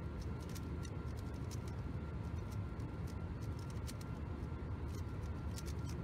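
A plastic 3x3 speedcube being turned rapidly during a timed solve: a quick irregular run of small clicks and clacks. Under it runs the steady low rumble of an airliner cabin in flight.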